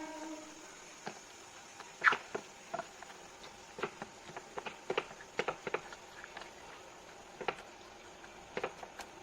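Scattered light clicks and knocks of kitchen handling, irregular and a few per second, with the sharpest knock about two seconds in.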